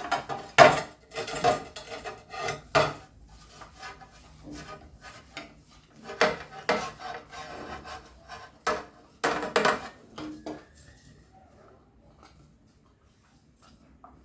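Hard kitchen items being handled and fitted together: a run of sharp knocks and clatters with scraping between them, dying away about eleven seconds in.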